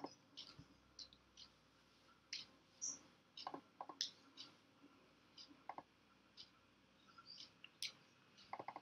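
Faint, irregular clicking of a computer mouse: many short, light clicks scattered over several seconds.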